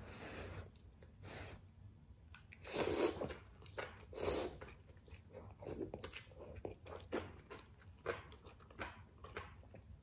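Ramen noodles being slurped and chewed by a person, with two louder slurps about three and four seconds in, then wet chewing with many short mouth clicks and smacks.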